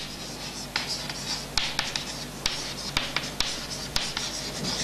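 Chalk scratching on a blackboard as words are written, with several sharp taps where the chalk strikes the board.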